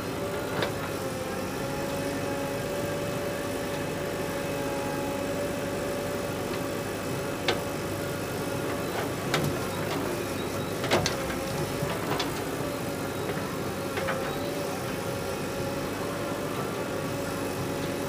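Diesel engines of a JCB 3DX backhoe loader working its backhoe arm and a tractor idling beside it, running steadily with a constant whine. A few sharp knocks come through, the loudest about eleven seconds in.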